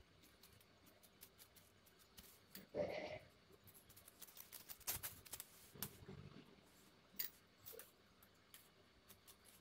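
Scissors cutting through silk blouse cloth and its lining: faint, scattered clicks of the blades and rustles of the cloth, loudest just before three seconds in.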